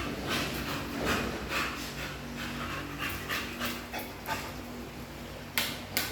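A dog panting in quick, noisy breaths, with two sharp clicks near the end.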